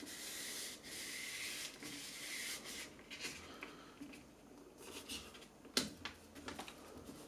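Fingers rubbing and pressing an adhesive-backed plastic bed skin flat onto a 3D printer's taped heat bed, smoothing it down to work out air bubbles. A faint rubbing with a few small sharp clicks, the loudest just before six seconds in.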